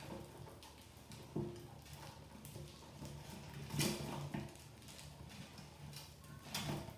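Mice scrabbling and scratching about on a cardboard lid, with scattered light taps and a few sharper knocks, the loudest about four seconds in and another near the end, over a faint low hum.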